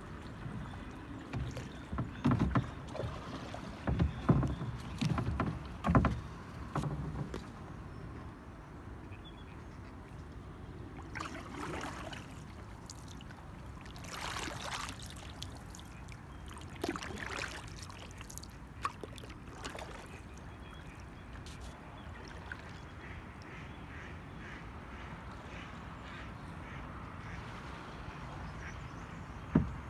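Canoe being paddled through flood water: a cluster of knocks in the first several seconds as the paddle strikes the hull, then softer paddle strokes swishing through the water, over a steady low background.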